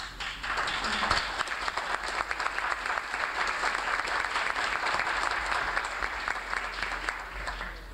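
Audience applauding steadily after a poetry reading, with a dense patter of many hands that fades out near the end.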